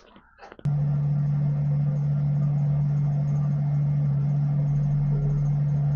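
Colchester Student lathe switched on about half a second in, its motor and headstock running steadily with a strong, even hum. The spindle turns slowly under power for a dial-indicator runout check of the collet chuck.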